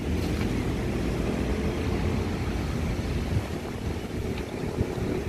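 Steady low rumble of a vehicle running nearby, with a continuous mechanical drone underneath.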